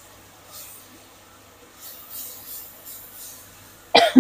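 Faint scraping of a spatula stirring frying chili-shallot paste in a wok, then a loud double cough near the end.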